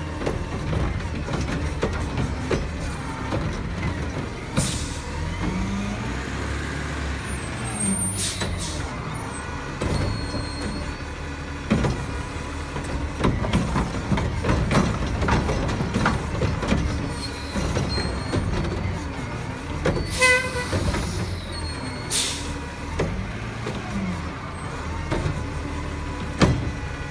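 Front-loading garbage truck's engine running and revving up several times as its hydraulics work, with several sharp hisses of air from the air brakes.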